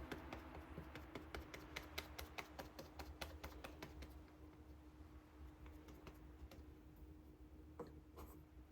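Faint, rapid clicks and taps, dense at first and thinning out after about four seconds, over a faint steady hum.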